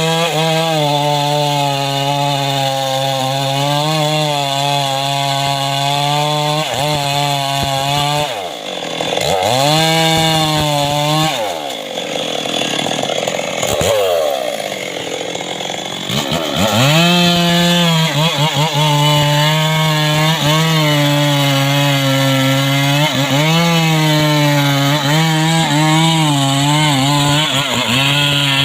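A homemade chainsaw running at high revs and cutting mahogany, its pitch wavering as the chain bites. About eight seconds in, and again from about eleven to sixteen seconds, the engine drops to lower revs, then revs back up near seventeen seconds.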